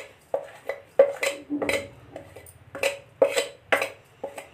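Metal spoon scraping and clinking against a stainless steel plate and bowl while scooping spice powder, a series of irregular short clinks and scrapes, some with a brief metallic ring.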